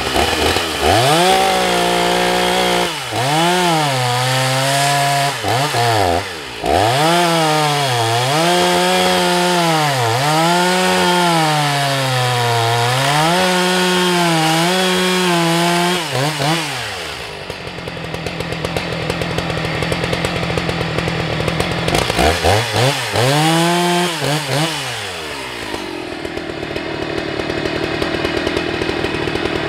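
Husqvarna 181 SE two-stroke chainsaw with a 20-inch bar cutting eucalyptus logs. The engine runs at full revs, its pitch dipping and recovering again and again as the chain bites into the wood. A little past halfway it drops to idle, revs up once more for a few seconds, then settles back to idle.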